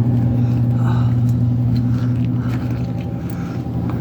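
Longwood dual-fuel oil/wood furnace running, its electric fan motor giving a steady hum.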